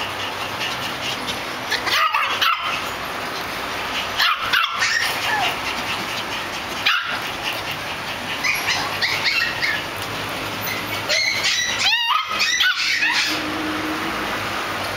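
Poodles barking and yipping in short scattered bursts, with the busiest run of yaps a little before the end.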